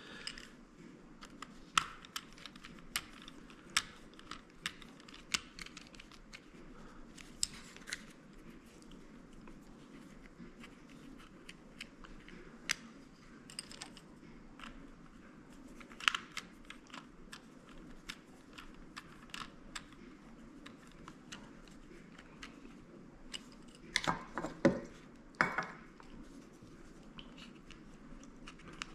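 Small sharp clicks and ticks of metal baitcast reel parts being handled as small screws are put back into the reel with a small screwdriver, with a few louder knocks a few seconds before the end.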